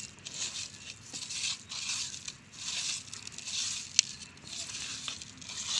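Raw mutton pieces being tossed by hand with dry spice powders in a clay pot: a run of rough rubbing, squishing strokes about a second apart, with one sharp click about four seconds in.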